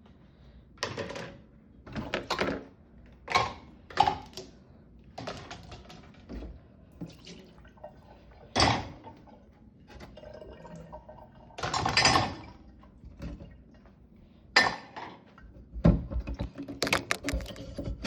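Dishes clattering and knocking irregularly as they are set into a dishwasher's top rack, with the strongest clatters about halfway through.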